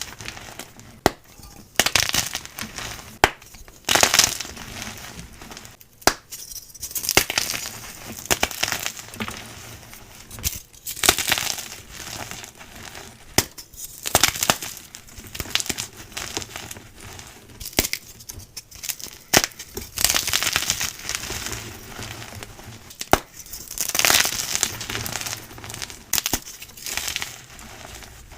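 Blocks of gym chalk being crushed and crumbled, a run of crunches and sharp snaps with gritty crumbling between, swelling in bursts every second or two.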